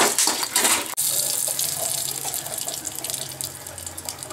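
Hot oil sizzling in a two-handled kadai, with quick scraping strokes of stirring in the first second, then a steady hiss that slowly fades.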